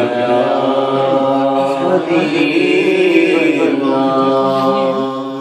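A man's voice singing a naat, an Urdu devotional poem, unaccompanied into a handheld microphone. He holds long, drawn-out notes in a slow chanting melody.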